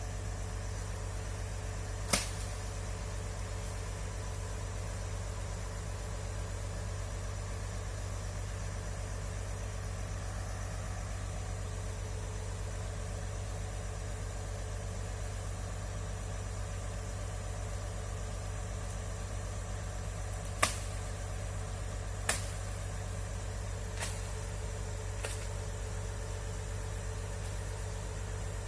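Excavator diesel engine running steadily at low revs with a constant low rumble, broken by a few short sharp knocks: one about two seconds in and four more close together near the end.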